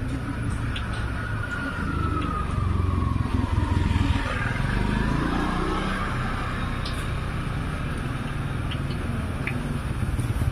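Hot oil sizzling around fish balls deep-frying in a large wok, with a few light clicks of metal tongs. Under it runs the low rumble of a motor vehicle engine, and its pitch sinks and then rises again a few seconds in, as a vehicle passing would.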